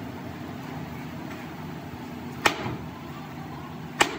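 Sledgehammer striking a metal motor-frame casting twice, about a second and a half apart, each a sharp clang. A steady low hum runs underneath.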